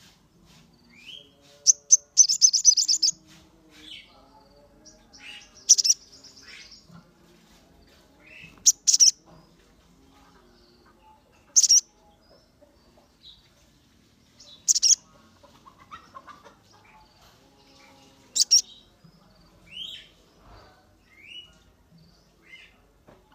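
Sogon sunbird calling: loud, sharp, very high chirps repeated every few seconds, with a rapid buzzy trill about two seconds in and short slurred notes between them. It is the worked-up calling used as a lure to set other sogons calling.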